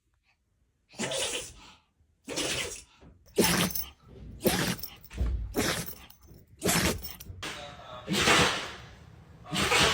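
Dogs sneezing over and over: about eight short, sharp sneezes, roughly one a second.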